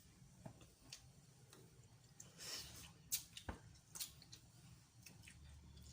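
Mostly quiet, with faint scattered clicks and a soft squish of boiled seafood being handled and eaten by hand.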